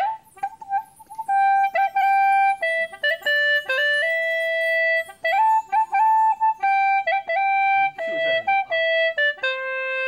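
Hulusi (Chinese gourd flute) playing a simple melody, a single line of held and short notes with brief breaks between phrases.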